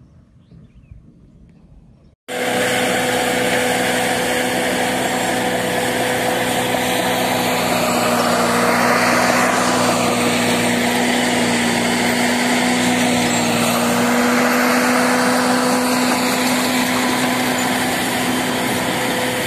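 Construction machinery engine running steadily and loud, a constant hum over a wide hiss, cutting in abruptly about two seconds in after faint background sound.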